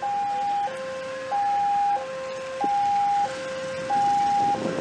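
Railway level-crossing warning alarm sounding from a horn loudspeaker: an electronic two-tone signal switching evenly between a higher and a lower tone about every two-thirds of a second, warning that a train is approaching the crossing.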